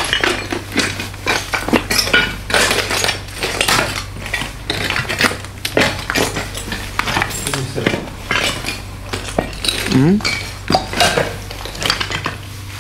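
Continuous, irregular clinking and crunching of hard debris such as glass and metal being walked over or shifted.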